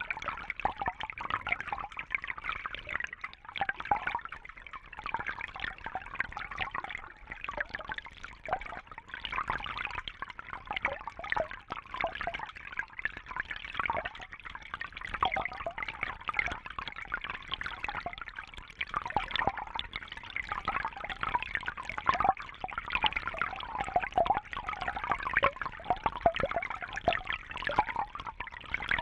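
Underwater fountain: water running and bubbling without a break, a dense stream of small pops and gurgles that swells and eases every second or two.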